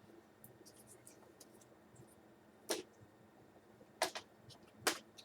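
Plastic laptop case parts being handled and fitted back together: faint small ticks, then a few sharp clicks and taps in the second half.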